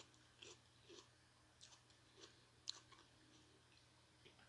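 Faint chewing: soft, wet mouth clicks and smacks about twice a second, with one sharper click near the middle.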